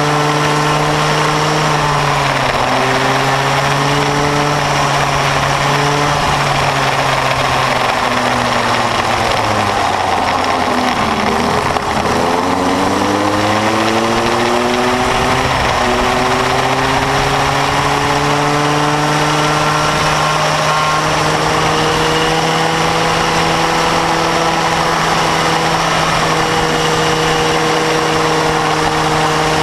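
A Bambino kart's small 50cc two-stroke engine heard from on board, running at steady high revs. About ten seconds in the revs fall steeply as the kart slows for a bend, then climb back over the next several seconds and hold steady again.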